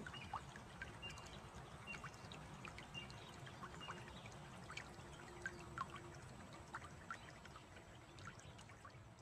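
Faint water trickling and lapping, with many small drips and splashes, and a few short high chirps in the first few seconds.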